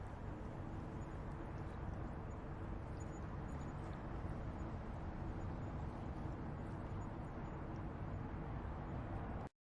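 Riverside outdoor ambience: a steady low rumble with faint small chirps or ticks above it, cutting off abruptly near the end.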